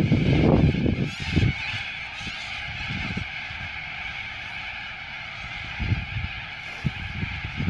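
Cockatoos squawking, a dense, steady chorus of harsh calls. Loud low rumbling in the first second and a half.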